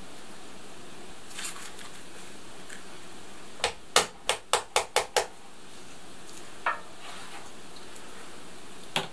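Clothes being hung on hooks to dry: a quick run of about seven sharp clicks midway, with a few softer rustles of cloth before and after, over a steady background hiss.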